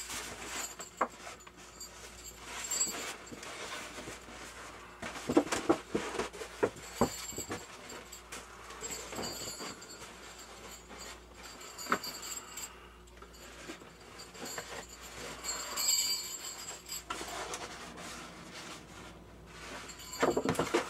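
Irregular paper rustling and light knocks as a rolled poster is handled and unrolled, over a faint steady high-pitched tone.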